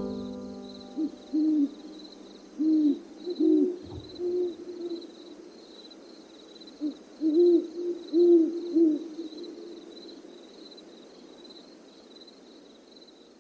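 An owl hooting: short low hoots in two runs, a few seconds apart, each hoot rising and falling slightly in pitch.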